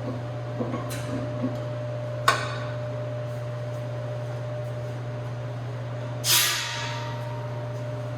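A steady low hum, a sharp metallic click about two seconds in, and a short hiss of released air about six seconds in that fades quickly.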